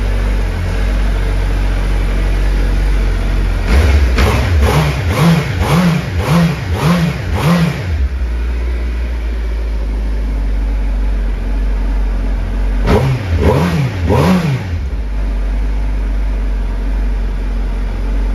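2007 Suzuki Hayabusa's inline-four idling on its standard exhaust, a little bit quiet. It is blipped through about six quick revs a few seconds in, then three more later.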